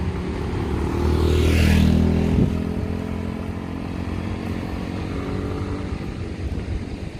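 Small motor scooter riding past close by: its engine swells as it approaches, is loudest about two seconds in, then drops in pitch and fades away. A short knock sounds just after it passes.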